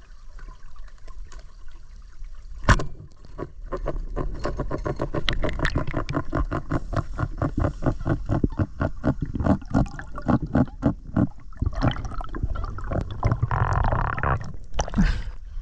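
Underwater sound picked up by a submerged camera: a sharp knock about three seconds in, then a long run of rapid, evenly spaced clicking, and a short rush of noise near the end as the camera nears the surface.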